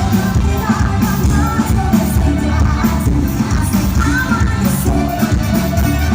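Music: a rock-style song with a singing voice over a steady drum beat and bass.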